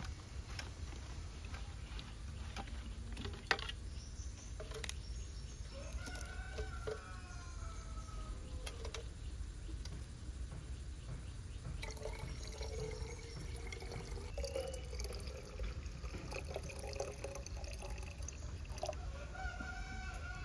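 Chickens calling several times, with a steady low hum underneath.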